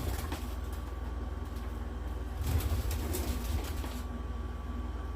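Steady low hum with a faint steady high tone. About halfway through comes a second or so of light scraping and small clicks as a tool works broken glass pieces out of a watch case.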